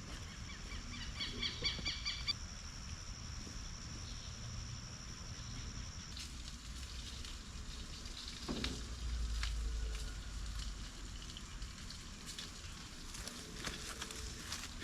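Outdoor ambience: a high, steady insect buzz that cuts off about six seconds in, a short rapid pulsing bird call near the start, and scattered faint rustles and clicks of movement.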